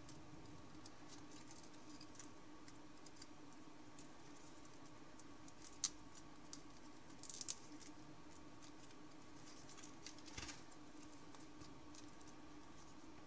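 Thin origami paper being folded and pinched by hand: faint scattered crinkles and rustles, with one sharp crackle a little before halfway and short spells of crinkling around the middle and about three-quarters through. A faint steady hum runs underneath.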